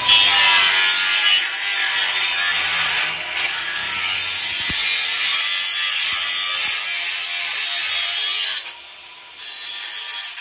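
Angle grinder with a cut-off wheel cutting through metal on a riding mower's engine, a steady high-pitched grinding hiss. It stops about nine seconds in and cuts again briefly near the end.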